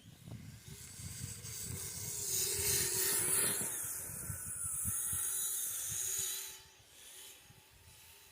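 Kyosho Blizzard electric RC tracked snow vehicle churning through snow: a hiss of snow with a faint wavering motor whine and low knocks. It swells to its loudest a few seconds in, then drops off sharply a little after six seconds.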